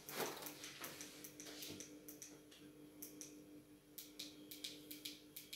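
Faint, irregular light clicks of small plastic parts being handled, a few at a time and more often in the second half, over a faint steady hum.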